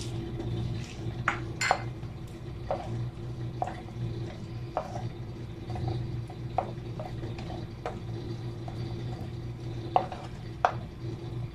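A wooden spoon stirs roasted peanuts through thick caramelized sugar in a non-stick frying pan, knocking and scraping against the pan at irregular intervals about a second apart. A steady low hum runs underneath.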